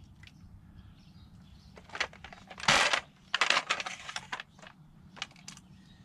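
Handling noises from unpacking a roof crossbar: a few sharp clicks and knocks, and two short rustles about two and a half and three and a half seconds in.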